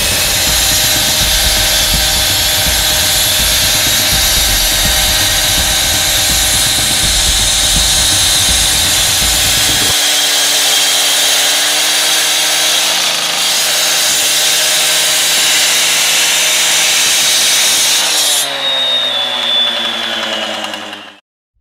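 Fast Cut SLR gas cut-off saw running at full throttle as its diamond blade cuts through a concrete pipe. Near the end the engine is let off and its pitch falls as the blade winds down, then the sound cuts off suddenly.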